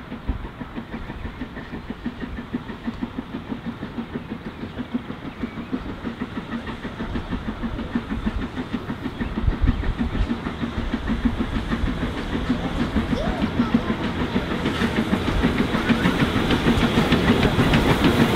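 LMS Princess Coronation Class 4-6-2 steam locomotive 46233 Duchess of Sutherland running at speed under steam. Its exhaust beats come quickly and evenly, along with the clatter of its coaches on the rails, growing steadily louder as it approaches.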